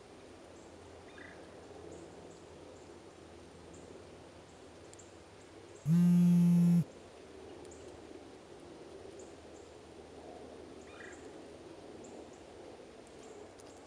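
A mobile phone vibrating: one loud buzz of about a second, steady in pitch, starting and stopping abruptly about six seconds in. Around it, a faint woodland background with a few soft bird chirps.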